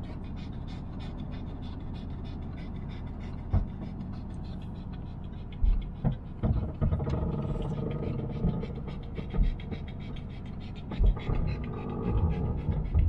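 Cabin noise of a car driving slowly: a steady low rumble of engine and tyres, with several short low thumps.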